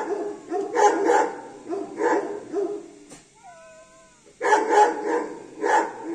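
Dogs barking in quick runs of two or three barks, with a pause about halfway through that holds one drawn-out whining cry before the barking starts again.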